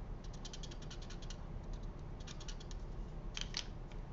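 Stampin' Blends alcohol marker tip colouring on cardstock in quick short strokes: runs of fine, rapid scratchy ticks. Two sharper clicks come about three and a half seconds in.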